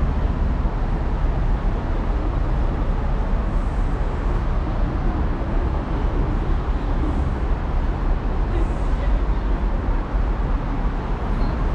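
Steady city street traffic noise: a continuous low rumble of road vehicles, with no single event standing out.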